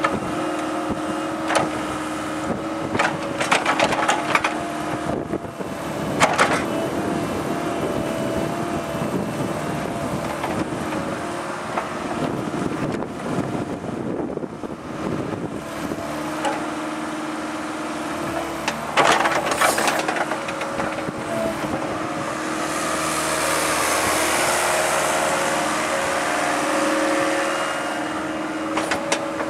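JCB 8060 mini excavator working: its diesel engine runs steadily with a hydraulic whine that shifts in pitch as the controls load it. Several sharp metallic clanks and knocks come from the bucket and boom as it digs and dumps soil, and near the end there are a few seconds of hiss.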